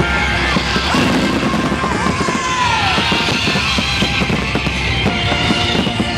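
Loud rock music with fireworks going off, many short sharp bangs and crackles.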